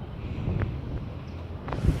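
Wind buffeting the microphone with a low rumble, broken by a couple of short knocks, the loudest near the end.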